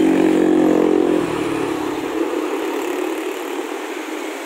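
Road traffic: a container truck's engine passing close, loudest in the first second and then fading, over steady traffic noise.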